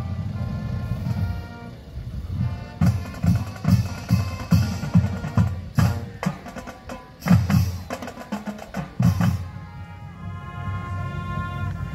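High school marching band playing: held brass notes at first, then a drum break of heavy, regular drum hits from about three seconds in, with the brass coming back in near the end.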